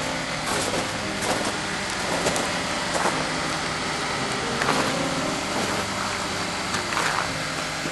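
A car engine idling steadily, with a few faint clicks over it.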